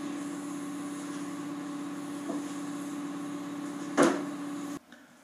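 Electric angle grinder running steadily at free speed, a steady hum with no grinding on metal. A single sharp knock about four seconds in, and the sound cuts off abruptly near the end.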